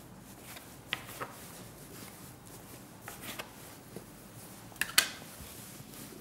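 Metal bench scraper cutting through ciabatta dough and knocking on a wooden work surface: a handful of light taps and scrapes, the sharpest near the end.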